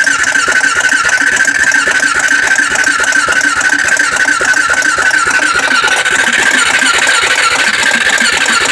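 Honda 400EX ATV's electric starter cranking its single-cylinder four-stroke engine in one long, unbroken spell with a steady whine and fast, even pulses; the engine turns over but never fires, the sign of a no-start.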